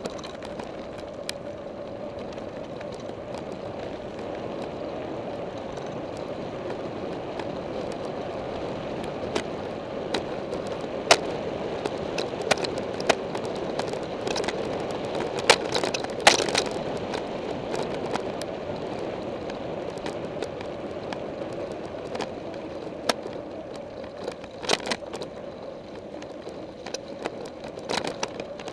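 Mountain bike rolling along a gravel track: a steady rolling and rushing noise from the tyres and the air, with sharp clicks and rattles from the bike over bumps, the loudest and most frequent around the middle.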